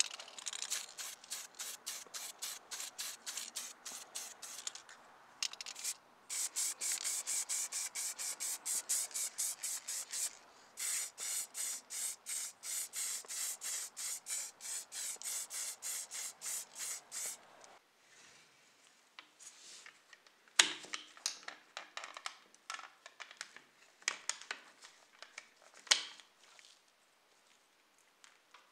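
Aerosol acrylic spray-paint can sprayed in rapid short bursts, about three or four a second, with brief pauses, as small model-car parts on a sprue are coated. Later it stops and gives way to scattered sharp clicks and taps of small model parts being handled.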